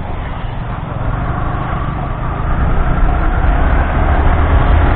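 Riding sound of a Yamaha R15 motorcycle: a steady low engine rumble mixed with wind noise, growing louder about halfway through.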